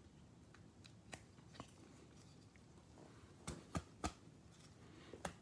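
Light plastic clicks and taps from a rigid top loader being handled, a trading card slid into it with gloved hands: a few faint ticks early, then three sharper clicks in quick succession about three and a half seconds in and one more near the end.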